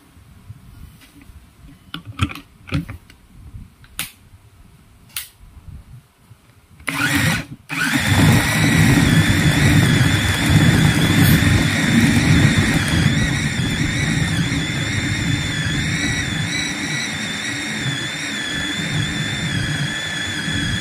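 A few scattered knocks as the lid and motor head of a bowl-type electric meat chopper are fitted, a short burst at about seven seconds, then from about eight seconds the chopper motor runs steadily with a high whine, mincing chicken and sausage with chillies and onions.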